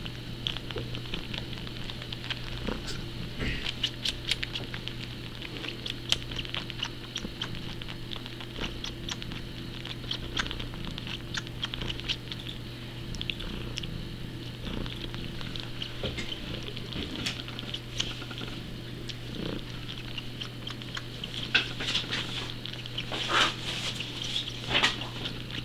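A cat suckling like a nursing kitten, making many small wet sucking clicks over a steady low hum, with a few louder smacks near the end.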